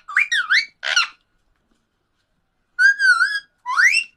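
Pet parrot whistling: a quick run of three gliding whistled notes, a pause of about a second and a half, then a wavering whistle and a rising whistle near the end.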